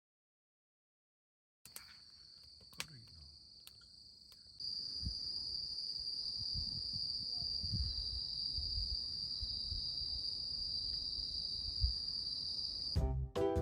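Insects singing outdoors in a steady, high-pitched chorus that starts after a moment of silence and grows louder about four and a half seconds in. Low rumbles and knocks, likely wind or handling on the microphone, sit underneath.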